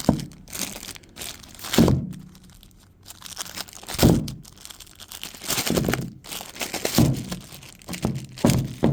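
Packaging crinkling and tearing, with a string of knocks and thunks, as a new milling cutter is unwrapped and handled. The loudest knocks come about two and four seconds in.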